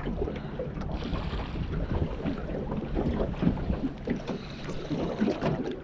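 Wind buffeting the microphone and water lapping against a small aluminium boat's hull, with scattered light knocks.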